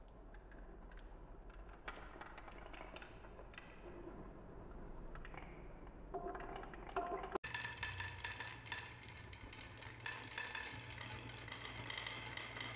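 Marbles rolling and clacking down a wooden marble run, many quick knocks of ball on wood. After a cut about seven seconds in, a small motor hums steadily under the continued clatter of balls.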